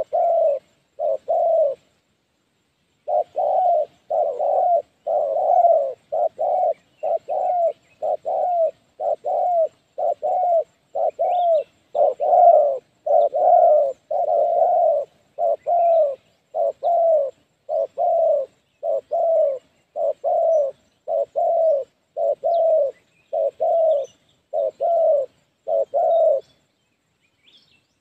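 Spotted dove cooing over and over in quick runs of short coos, about two a second and often paired, each dropping in pitch at the end. It breaks off briefly about two seconds in and again near the end. This is the steady calling of a trapper's decoy dove, used to draw a wild dove to the net trap.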